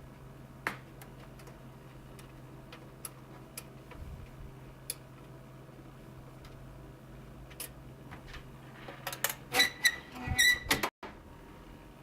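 Scattered light clicks of parts being handled over a low steady hum, then about nine seconds in a two-second cluster of squeaks and clattering, the loudest part, which cuts out abruptly for a moment.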